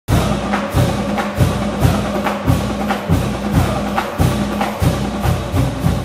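Intro theme music with a steady percussive beat, about two sharp hits a second over a heavy bass.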